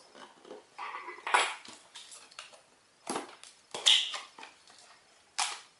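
A cardboard box and its contents being handled as it is opened: several separate clattering and rustling bursts.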